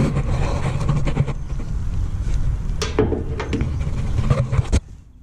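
Cordless impact wrench hammering on the nut of a muffler band clamp as it is tightened, with a brief wind-down about three seconds in, then stopping abruptly near the end.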